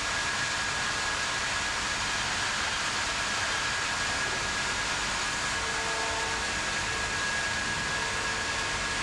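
Sawmill bandsaw line machinery running steadily: an even rushing noise with a thin, steady high whine.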